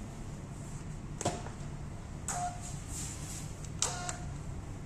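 Three light clicks of a container being handled during weighing on a laboratory balance, the last two each followed by a brief ringing note, over a low steady hum.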